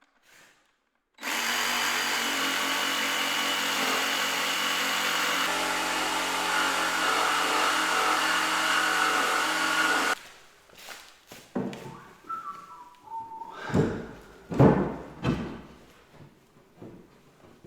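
Electric power tool running steadily at constant speed for about nine seconds, then cutting off. This is followed by scattered knocks and a few loud thuds.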